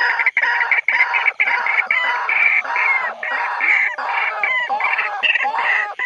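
White-breasted waterhen territorial calls, a dense, unbroken run of loud overlapping calls that rise and fall in pitch.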